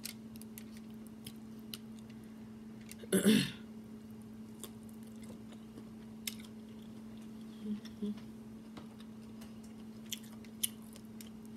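Close-miked chewing of seafood-boil food, with scattered small wet clicks and smacks of the mouth and fingers. A brief voiced 'mm' about three seconds in is the loudest moment. A steady low hum runs underneath.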